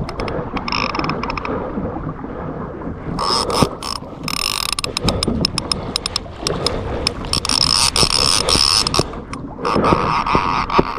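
Rapid mechanical clicking and ratcheting, coming in stretches of a second or two with quieter gaps, from gear on a pedal-driven fishing kayak.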